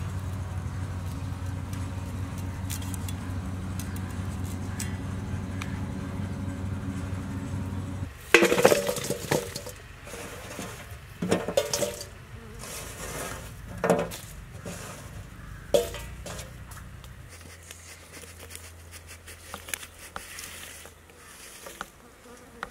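Sharp clinks and clatters of dried salt fish pieces and a knife against a steel bowl, loudest at a few separate knocks. Before them a steady low hum runs for several seconds and stops suddenly.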